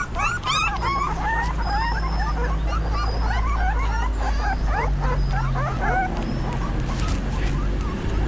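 A litter of three-week-old Belgian Shepherd puppies whining and squeaking without pause, many short rising and falling squeals overlapping, over a steady low rumble.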